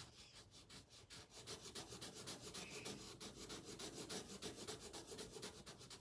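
Marker rubbing on paper in quick back-and-forth coloring strokes, about eight strokes a second, faint and steady.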